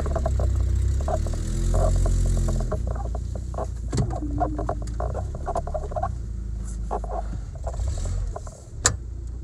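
Pickup truck engine running at low revs while the truck creeps over rough ground, louder for the first couple of seconds and then easing. A rapid run of clicks and clatter goes on throughout, with a sharp clunk near the end.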